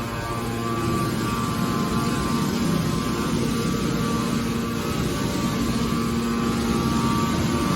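Hydraulic aluminum can baler's power unit running: a steady machine hum over a rumble. Its humming tone fades shortly after the start and comes back about six seconds in, as the load on the pump changes.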